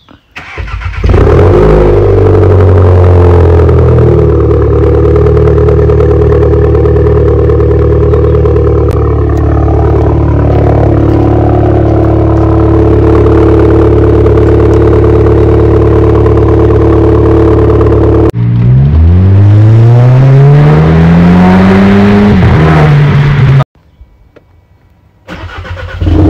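Seat Leon 1.8 TSI turbocharged four-cylinder, with its rear silencer and middle muffler removed, starting about a second in and running at a steady raised idle. The steam from the tailpipe marks it as a cold engine on fast idle. Later one rev climbs slowly over a few seconds and drops back, then the sound cuts out briefly before the engine is heard again near the end.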